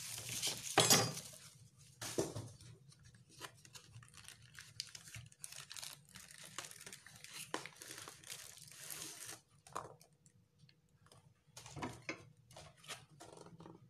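Cardboard boxes and plastic wrapping being handled: a run of rustling, crinkling and small scraping clicks, loudest in the first second and thinning out near the end.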